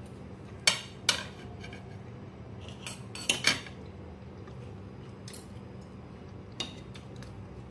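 Metal knife and fork clinking against a plate while cutting food: a handful of separate sharp clinks scattered through, the loudest near the start.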